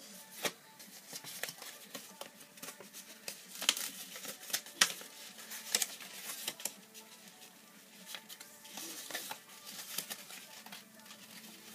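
Folded paper fortune teller (cootie catcher) being fitted onto the fingers and worked: irregular small paper clicks and crinkles as the folded flaps are pushed and snap open and shut.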